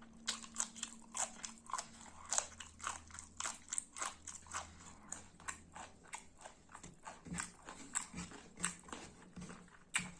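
A person chewing and biting food, a quick irregular run of sharp mouth clicks, several a second.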